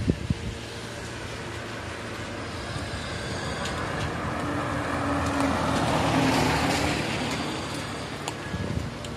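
A car passing by, its engine and tyre noise rising to a peak about six seconds in and then fading away.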